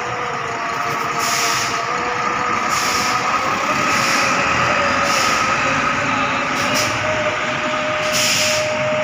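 Large coach bus pulling away across a wet, puddled terminal apron, its engine running with a steady whine and repeated short hisses about once a second.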